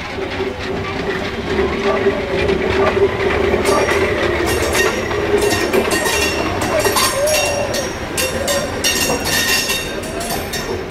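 Small steam tank locomotive and a single passenger coach rolling slowly past over a steady hum. The wheels start clicking over the rail joints and points about four seconds in and keep clicking as the coach goes by.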